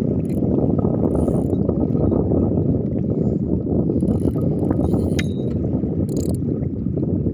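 Spinning fishing reel cranked steadily to retrieve line: a continuous low rattling whir from its gears, with a few brief higher clicks.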